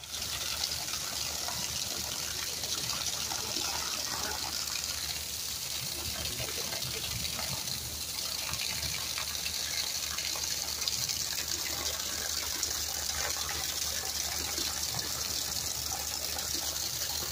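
Heavy rain pouring steadily onto muddy ground and standing floodwater, a dense even hiss with the patter of drops.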